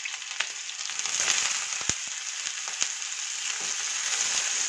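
Chopped onions sizzling in hot oil in a kadai, a steady frying hiss, with the scrape and a few sharp taps of a silicone spatula stirring them.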